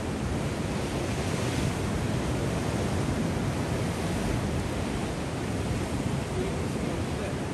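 Ocean surf breaking and washing over a coastal rock ledge: a steady, continuous rush of waves.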